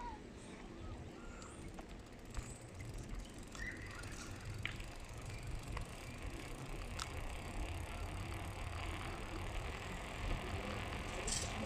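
Bicycle riding along, tyre and wind noise growing slowly louder, with a few short clicks.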